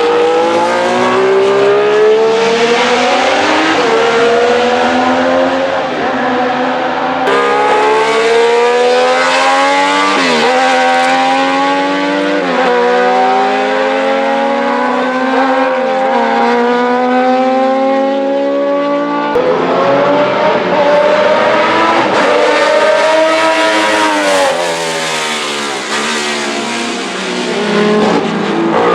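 Alfa Romeo 33 SP 12 flat-12 racing engine accelerating hard on track, its pitch climbing again and again with brief drops between gear changes.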